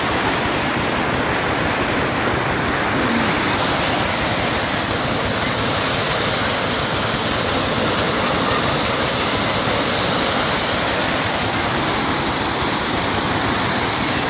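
Flash-flood torrent of muddy water rushing down a wadi: a loud, steady rush of water.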